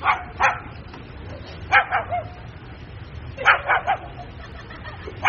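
Puppy yapping: short, high-pitched yaps in little runs of two to four, over a steady low background hum.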